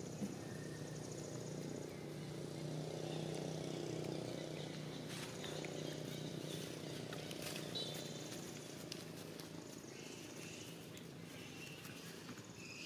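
Faint outdoor background: a low steady hum that fades after about two-thirds of the way through, a pulsing high-pitched buzz that comes and goes, and scattered light clicks and rustles.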